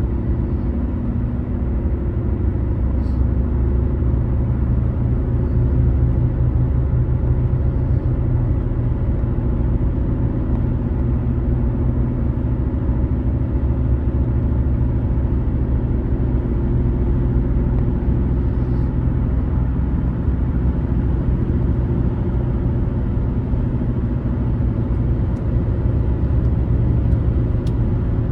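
A car driving at steady speed: an even low rumble of tyres and engine, with no change in pace.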